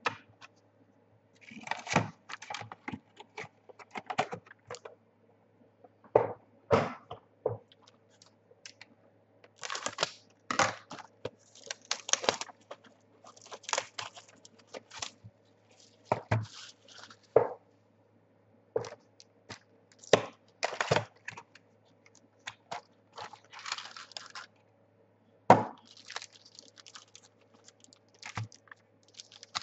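Trading card pack wrappers being torn open and crinkled while cards are handled: irregular crackly rustles and sharp clicks, some lasting up to a second, over a faint steady hum.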